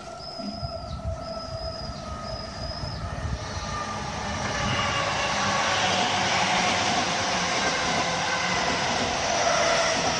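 Orange-striped Chuo Line electric commuter train approaching and passing beneath the overpass. Its running noise builds about four seconds in to a loud, steady rush of wheels on rail.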